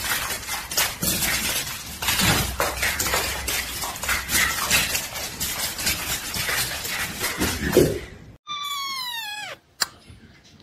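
Dog and cat scuffling on a hard tile floor: a rough, crackly clatter full of sharp clicks. Near the end, a single cat meow falls in pitch.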